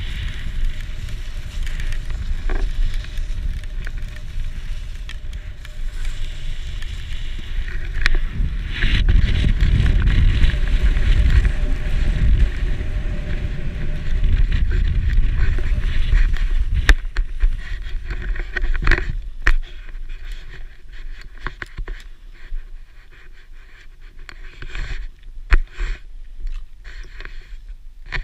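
Wind buffeting the microphone of a pole-held action camera and skis scraping and hissing over snow while skiing downhill, with a heavier rumble in the middle as speed picks up. Near the end it turns quieter, with a few sharp knocks.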